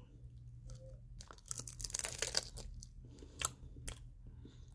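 Thin, crisp toasted sesame seaweed snack crackling as it is torn and bitten. A dense crackle comes about a second and a half in, followed by a few sharp crunches.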